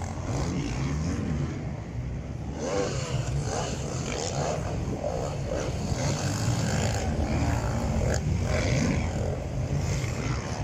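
Racing quad engines on a motocross track, revving with the pitch rising and falling as they work around the course.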